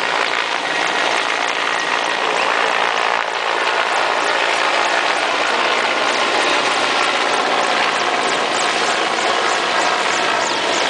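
Low-flying Mil Mi-17 military helicopter passing overhead, its turbine and rotor noise loud and steady. A regular beating of the blades grows plainer in the second half.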